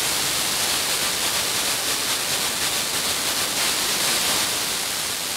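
Steady FM receiver hiss from a weak, long-distance broadcast signal, with a short music interlude between news items faintly underneath.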